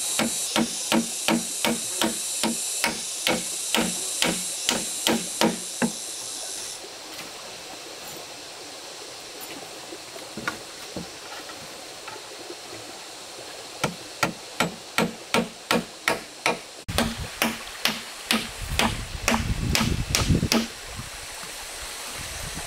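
Hammer blows in quick succession, about three a second, in two runs with a pause of several seconds between them, over the steady rush of a stream.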